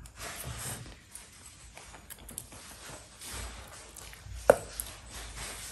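Soft eating sounds as a man slurps up a forkful of spicy instant noodles and chews. There is one sharp click about four and a half seconds in.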